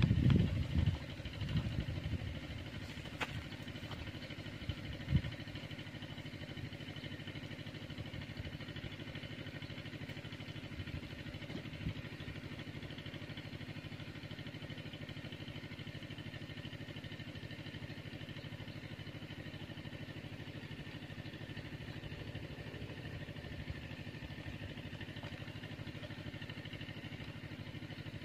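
A small engine running steadily with an even, unchanging hum, with a few faint knocks early on.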